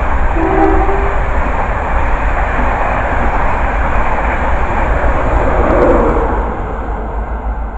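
East Coast express passenger train running through at speed close by: a loud, steady rush of wheels and coaches on the track, easing off near the end as the last coaches pass.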